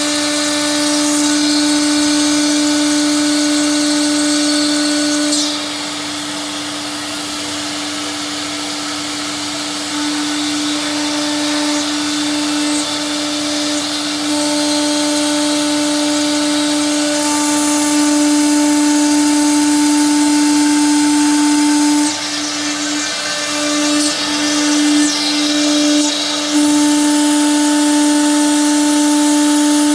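Stone CNC bridge saw running, its blade spindle giving a steady whine over the grinding hiss of the cut. The sound drops about five seconds in and comes back, then falls briefly several times near the end.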